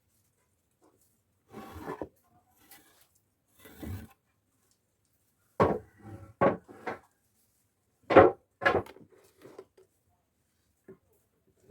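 Wooden workpieces being handled: a couple of soft scrapes, then about five sharp knocks of wood, the loudest two a little past the middle.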